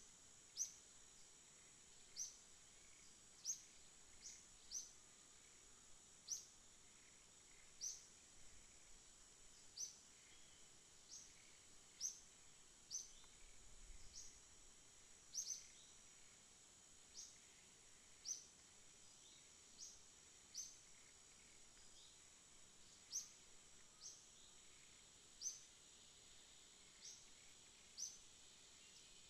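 Outdoor ambience of a steady, high insect drone, with short, sharp, high chirps repeating about once every second or so.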